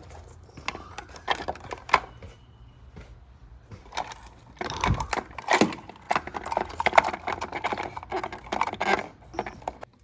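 Irregular clicks, snaps and rattles of wire-harness plugs being pulled from a refrigerator's control board and the board being handled, busiest in the second half, over a low steady hum.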